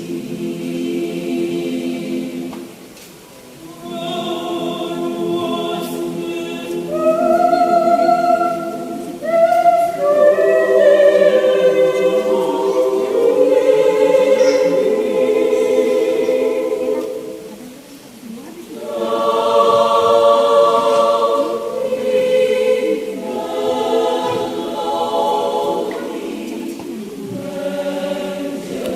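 Mixed adult church choir singing a cappella in several voice parts, with sustained chords and short breaks between phrases.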